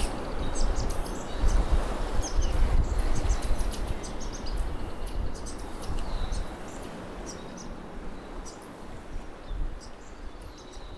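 Outdoor ambience: a steady rushing noise with a low rumble and scattered short, high chirps, fading down over the second half.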